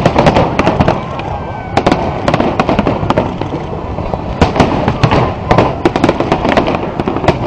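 Fireworks display: aerial shells bursting in a dense, continuous barrage, several sharp bangs a second over a steady crackling din.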